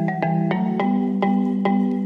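Background music with a steady beat of bright struck notes, about two or three a second, over held tones.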